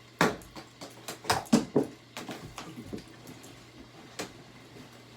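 Hand-pump spray bottle squirted over and over in quick, uneven succession, about a dozen short hissing sprays, thickest in the first two seconds and thinning out after about four seconds.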